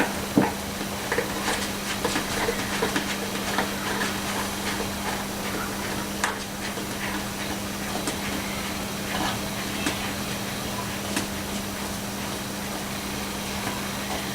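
Scattered small clicks and knocks from hands working the plastic GoPro bodyboard plug mount in the board, over a steady low hum.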